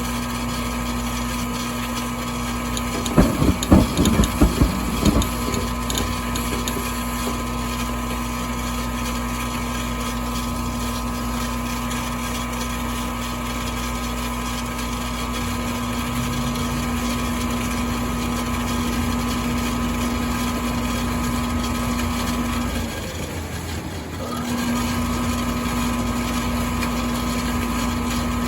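Goodman furnace running with a steady hum, broken about three seconds in by a quick series of loud clicks, the clicking fault the furnace has. Later the hum cuts out for about a second and a half and then starts again.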